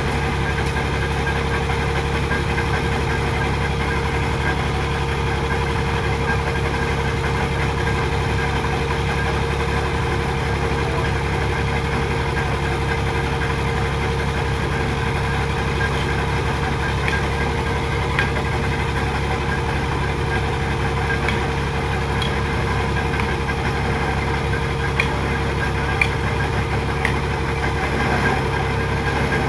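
Engine of piling equipment running steadily at a constant speed, with a few faint clicks in the second half.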